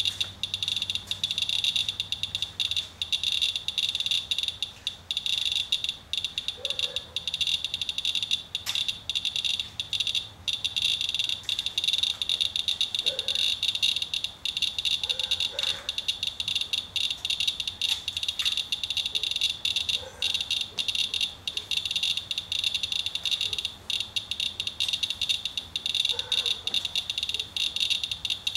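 Radalert Inspector Geiger counter clicking rapidly and without pause, a dense crackle of counts. The high count rate means the rain-wet sample is strongly radioactive, reading about 0.3 to 0.37 mR/hr, roughly 30 to 37 times background.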